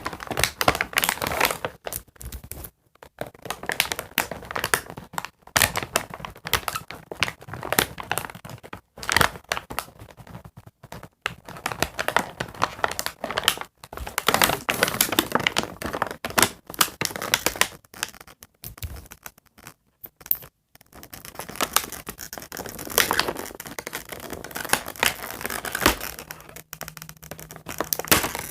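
Toy packaging being handled and pulled apart: irregular crinkling, tearing and scratching, with a few short pauses.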